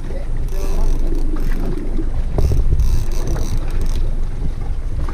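Wind buffeting the microphone on an open boat: a steady, loud, low rumble.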